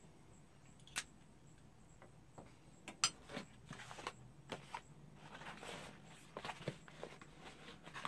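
A Zippo lighter's lid snapping shut with a sharp click about a second in, then a cardboard shipping box being picked up and handled: a louder knock just after three seconds and a run of small knocks, scrapes and rustling.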